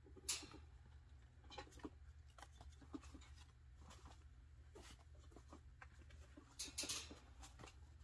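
Baby chinchillas scrabbling in a metal baking pan of dust: faint scattered scratches and clicks of claws on the metal and in the dust, with a sharp click just after the start and a louder burst of scraping about seven seconds in.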